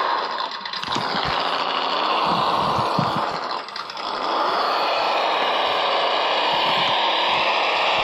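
Small electric motor and gearbox of a 1/18 scale RC rock crawler running, a steady high mechanical whine that eases off briefly twice as the throttle drops, with a few light knocks from the chassis or tyres on the wooden floor.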